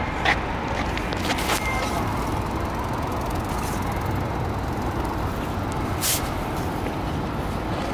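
Steady road-traffic rumble and hiss, with a few short sharp clicks about a second in and again about six seconds in.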